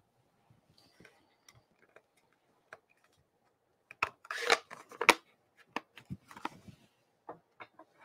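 A plastic ink pad case being handled and moved, giving a cluster of sharp clicks and knocks from about four seconds in, the loudest just after five seconds, then a few lighter taps. The first half is almost quiet, with only faint ticks.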